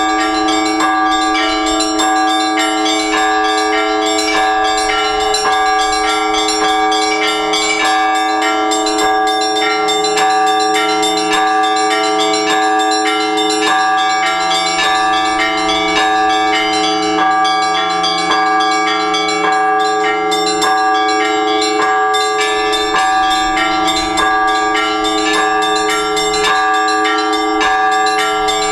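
Orthodox church bells rung together by hand from a bell tower. Small bells are struck in a quick repeating pattern over the lingering hum of larger bells, with a deeper bell sounding about every two seconds.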